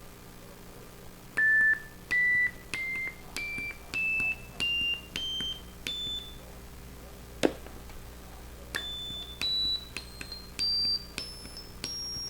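Short electronic beeps from an Arduino Mozzi synthesizer, each starting with a click and stepping up in pitch, about one every 0.6 seconds. A sharp click comes about halfway through, and then a second climbing run of beeps starts higher.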